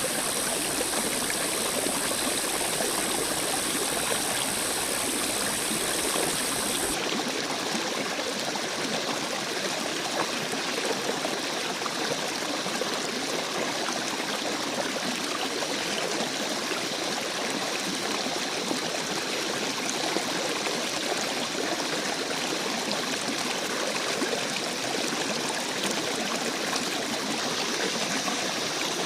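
Running water flowing steadily, a continuous even rush. A steady high hiss over it stops abruptly about seven seconds in.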